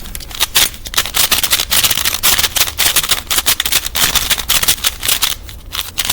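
Plastic Pyraminx puzzle being twisted rapidly by hand, its pieces clicking and clacking in a fast, near-continuous rattle.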